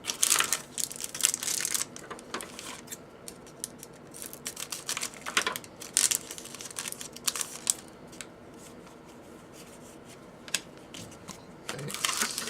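Hockey card pack wrappers crinkling as packs are cut open with scissors and the cards handled. The crinkling comes in bursts, near the start, around the middle and again near the end, with quieter stretches of light clicks and rustles between.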